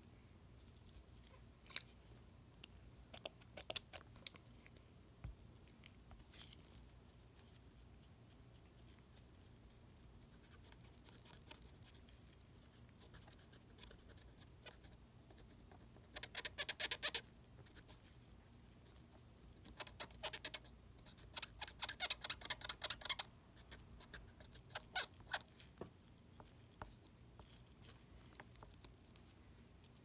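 A cotton swab scrubbing a circuit board, heard as faint rapid scratchy rubbing in two bursts about halfway through, the second longer. Scattered small clicks, earlier and later, come from gloved hands handling the board.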